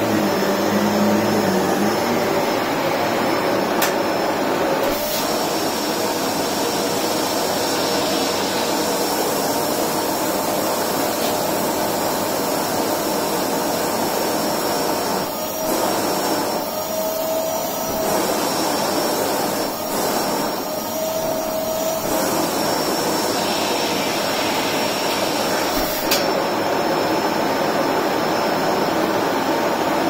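Electrolux Precision bagless upright vacuum cleaner running steadily while being pushed back and forth over a thick rug, with a steady high motor whine. Twice past the middle its tone rises briefly and the noise dips.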